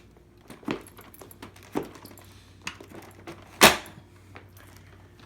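A few scattered clicks and knocks from an upright vacuum cleaner being handled with its motor off, the loudest knock about three and a half seconds in.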